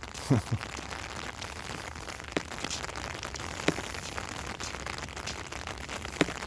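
Steady rain falling, with a few sharp taps standing out.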